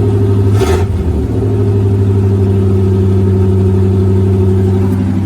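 Chevy 350 V8 of a 1982 C20 pickup running, with a short change in engine pitch within the first second or so before it settles into a steady idle.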